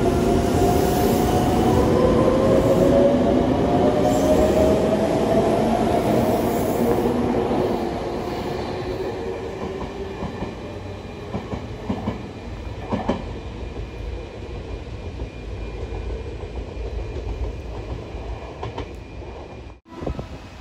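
Meitetsu electric trains at a station platform. For the first several seconds the motors whine rising in pitch as the train accelerates. After that the sound is quieter, with a few sharp clicks of wheels over rail joints as another train comes in.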